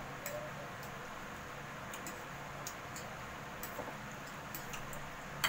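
A person eating spaghetti: small, irregular clicks and smacks of chewing over a steady hiss, with a sharper click at the very end.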